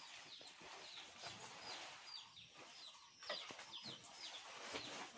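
Faint chicken calls: a run of short, high peeps, each falling in pitch, several a second, with a few light knocks in between.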